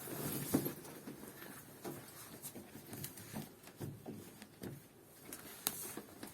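Quilted fabric washing-machine cover being handled and fitted onto the machine: faint rustling with scattered light knocks and clicks, a sharper click near the end.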